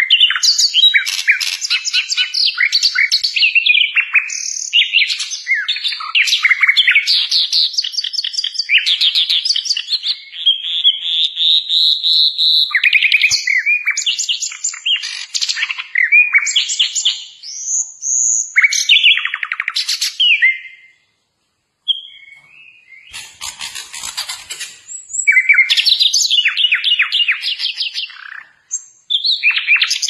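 Caged sikatan londo flycatcher in full song: a fast, varied stream of chattering trills and whistled notes, breaking off for about a second roughly two-thirds of the way through.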